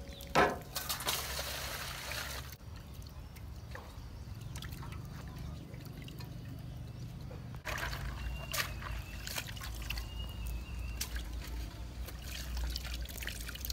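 Water poured from a plastic dipper into an aluminium basin, splashing for about two seconds. Later, quieter water splashes and small knocks as fish are rinsed and stirred in the basin.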